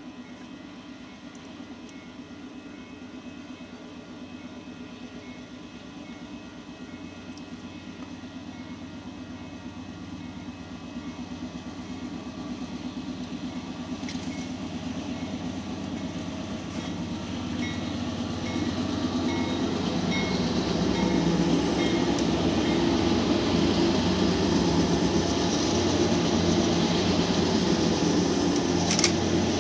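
Union Pacific diesel locomotives approaching at the head of a freight train, their engine rumble growing steadily louder for about twenty seconds and then holding loud as the lead units draw level.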